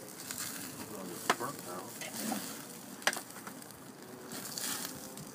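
Fatty short ribs sizzling over a grease fire flaring in a charcoal kettle grill, as dripping fat feeds the flames. Two sharp clicks stand out, about a second and three seconds in.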